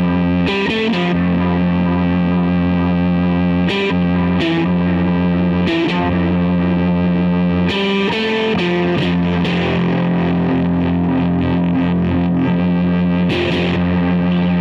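Distorted electric guitar through a Boss DF-2 Super Feedbacker & Distortion pedal, a note held in steady endless sustain while short picked notes sound over it every second or few. An MXR Carbon Copy analog delay adds repeats, and the held note changes pitch a little past halfway.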